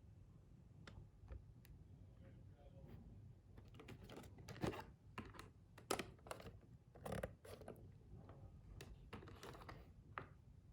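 Faint handling noise: scattered small clicks and rustles. The sharpest clicks fall in the middle, about five, six and seven seconds in.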